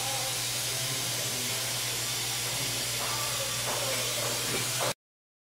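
Steady hiss with a low hum beneath it and faint voices in the background, cutting off suddenly about five seconds in.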